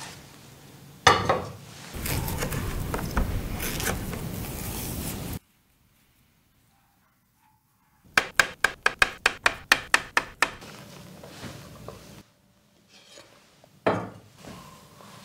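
Kitchen handling sounds: a frying pan is set down on an electric hot plate with a knock about a second in, followed by a few seconds of steady rushing noise. After a gap comes a quick run of about a dozen sharp taps, and near the end a glass mixing bowl is set down with a knock.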